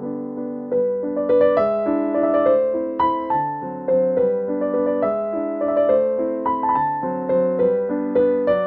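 Background music: a gentle piano melody.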